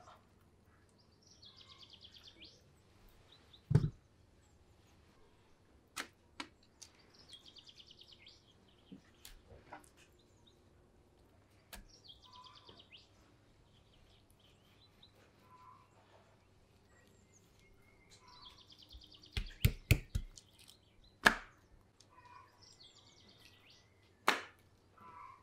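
Knife slicing raw chicken fillet on a wooden cutting board, the blade knocking on the wood now and then, with a quick run of about five knocks a little before two-thirds of the way in. A bird sings short trilled phrases about every five or six seconds.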